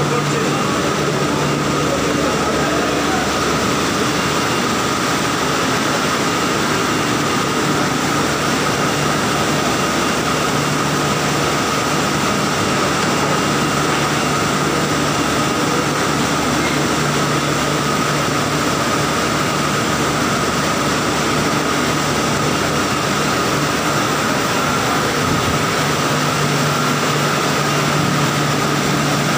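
Banana washing line running: a constant mechanical drone from its conveyors and machinery, with a steady whine over a low hum.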